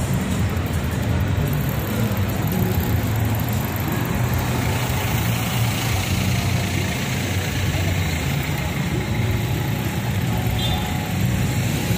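Steady city street noise: a low rumble of traffic with a hiss of wind and rain over it, heard on the move.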